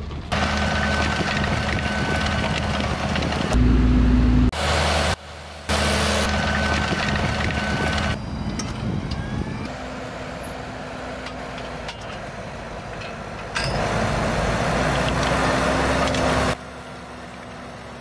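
Fendt 724 Vario tractor's six-cylinder diesel engine running steadily under load. The sound comes in short edited stretches whose loudness jumps up or drops off abruptly every few seconds.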